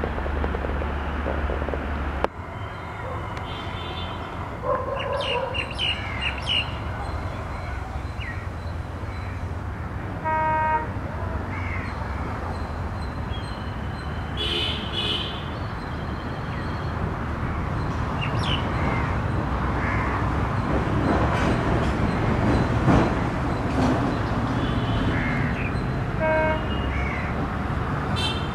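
Trackside ambience with crows cawing and small birds chirping over a steady low rumble, as an approaching WDP4D diesel-electric locomotive grows louder through the second half. About two seconds in, the sound changes abruptly from the rumble of a train moving away.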